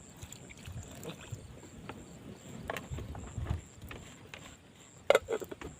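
Strong wind buffeting the microphone in uneven low gusts, with scattered light clicks and rustles and a sharper cluster of knocks about five seconds in.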